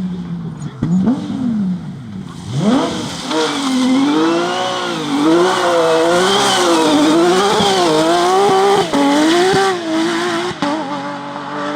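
Porsche rally car engine revving hard: two quick rises in revs in the first few seconds, then the revs swinging up and down about once a second as the throttle is worked, settling to a steadier tone near the end.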